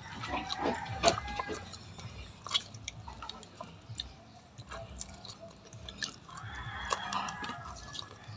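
Close-up chewing and eating: irregular small crunches and wet clicks of food being bitten and chewed.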